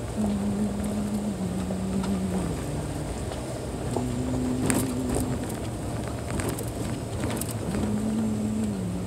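Car engine running in a low gear on a steep dirt-road descent, holding the car back so the brakes are barely needed; its hum steps up and down in pitch with the speed. Tyre noise on the dirt, wind at the window and a few sharp ticks run under it.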